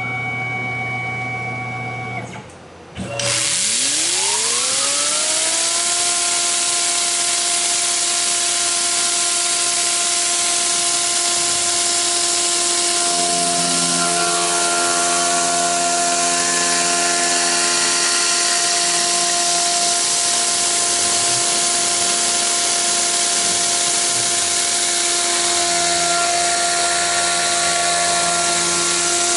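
Tormach PCNC 1100 CNC mill spindle starting up about three seconds in, its whine rising in pitch for a few seconds and then holding steady over a loud, even hiss as a large cutter faces the top of a brass cylinder. A lower hum joins in twice, midway and near the end.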